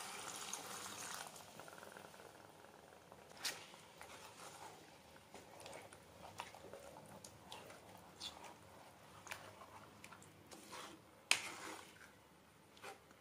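Water being poured into a pan of mutton gravy for about the first second, followed by scattered soft knocks and clicks, the loudest about eleven seconds in.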